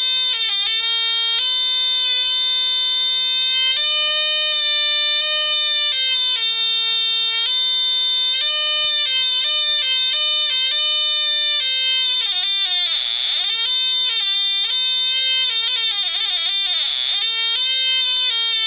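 Tandy/Radio Shack Science Fair kit's audio oscillator, played through its small speaker with the pitch set by skin resistance across the fingers, giving a reedy electronic tone that steps and slides up and down like a snake charmer's pipe. The pitch wavers quickly about two-thirds of the way through and again near the end.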